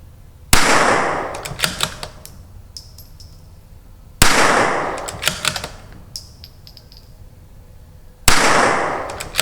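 CZ 457 .22LR bolt-action rifle, fitted with an ATS barrel tuner, firing Lapua Center X target rounds: three sharp shots about four seconds apart, each ringing out briefly. A quick run of clicks follows each shot as the bolt is worked to chamber the next round.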